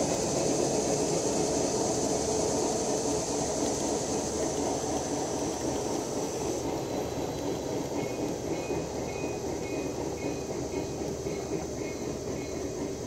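G scale model freight cars rolling along garden railroad track, their wheels giving a steady rumble and clatter that eases slightly toward the end as the last cars pass.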